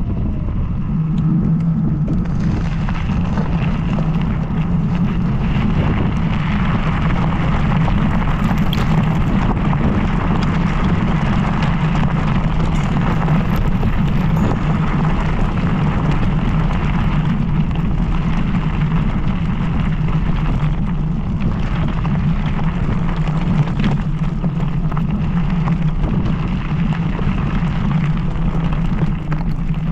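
Steady wind rush and low rumble on the microphone of a moving MS Energy X10 electric scooter, with a constant low hum under it.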